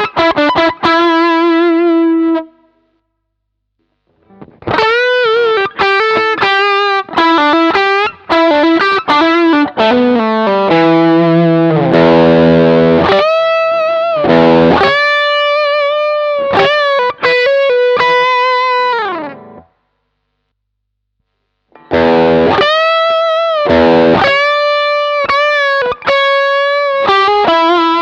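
Electric guitar played through an overdrive pedal, with a mildly driven, sustaining tone. It plays single-note lead phrases with vibrato and bends, and stops for about two seconds twice.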